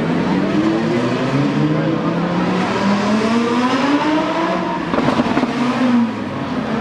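Loud supercar engine accelerating away, its pitch rising for about three seconds and then falling back. A few sharp cracks come about five seconds in.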